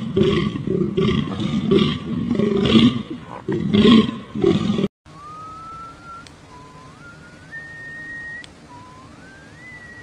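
A deer stag roaring: several loud, low, rough calls in the first half. They are followed by three slow rising whistled notes, each climbing and then holding.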